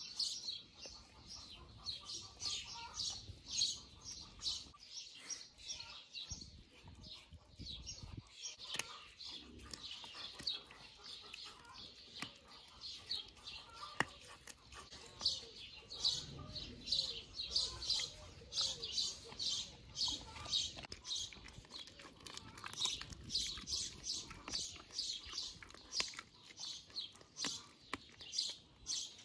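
Small birds chirping rapidly and continually, with now and then a sharp crunching click as a husky bites and chews a dried beef chew strip.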